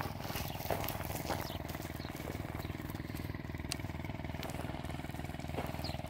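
A steady, finely pulsing low drone like an engine running at idle, with a few faint clicks over it.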